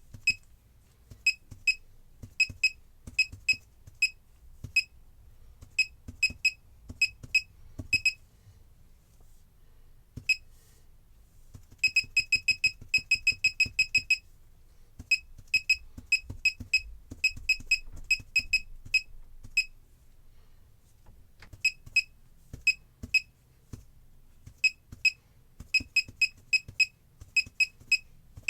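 Laser projection keyboard giving a short, high beep for each key press as it is typed on. The beeps come at an irregular typing rhythm, with a quick run of rapid keystrokes about halfway through and a few short pauses.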